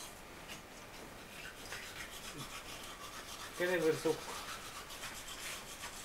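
Duvet and bedclothes rustling and rubbing as people shift in bed, with one short vocal sound from a person a little past the middle.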